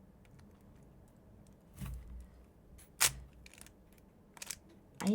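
Plastic MoYu RS3M 2020 speed cube with its springs removed, its loose layers being turned by hand: a dull knock, then a sharp plastic clack about three seconds in, and a lighter click near the end.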